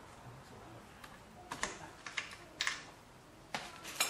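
About half a dozen sharp clicks and light knocks at irregular intervals, starting about a second and a half in.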